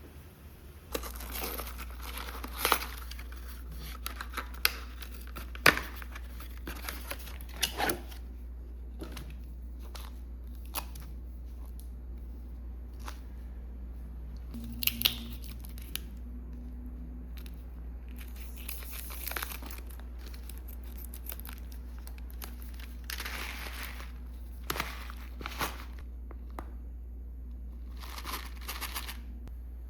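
Hands handling things: repeated bursts of rustling and crinkling with scattered sharp clicks and knocks, over a steady low hum that starts about a second in.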